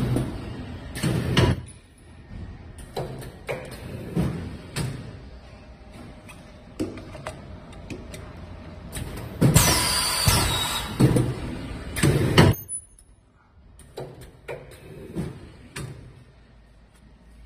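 Semi-automatic ultrasonic tube sealing machine running through sealing cycles. Each cycle is a burst of about three seconds: a hiss with a thin high whine as the clamp closes and the plastic tube's tail is welded. One burst ends about a second and a half in, and another runs from about nine and a half to twelve and a half seconds in. Between them come scattered clicks and knocks as a tube is loaded into the holder.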